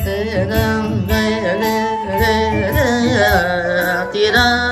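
Yamaha PSR-SX arranger keyboard playing an Isan-style melody: a lead voice that slides and wavers in pitch over the keyboard's steady drum and bass accompaniment.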